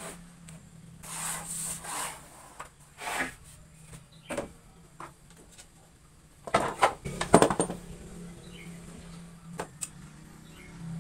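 Wooden pieces being handled on a workbench: scattered knocks and short scrapes of wood against wood, with a cluster of louder knocks about six to seven seconds in, over a faint steady low hum.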